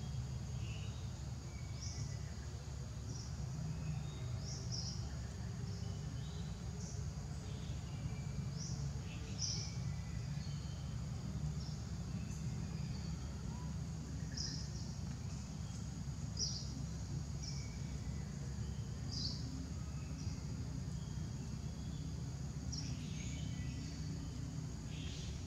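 Outdoor ambience: a steady low rumble with a thin, high, steady insect drone, and short high chirps scattered every second or two.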